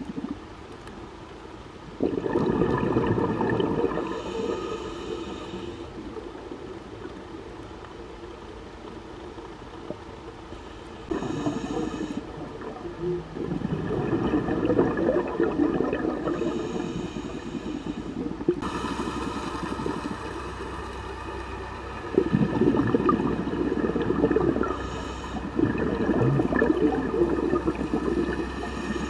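Scuba diver breathing underwater through a regulator: a hiss on each inhale, then a long rush of exhaled bubbles, repeating every few seconds.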